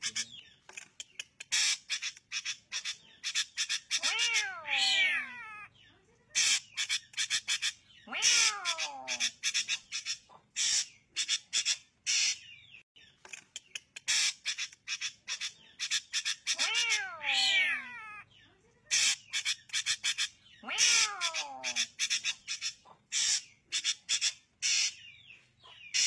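Drongo calling: rapid runs of sharp, clipped chattering notes. About four times these are broken by a longer wavering call that slides downward in pitch.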